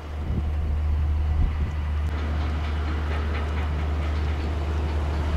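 Wind rumbling on the microphone, steady and low, with a run of faint rapid ticks in the middle.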